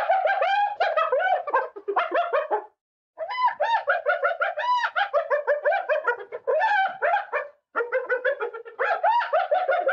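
Spotted hyena laughing: rapid strings of short, high-pitched notes that rise and fall, in three bouts broken by short pauses about three seconds and seven and a half seconds in.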